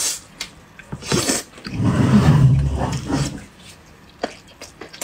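Close-miked chewing and lip smacking of soft braised pork belly, with a few sharp mouth clicks, and a louder low rumble lasting about a second and a half in the middle.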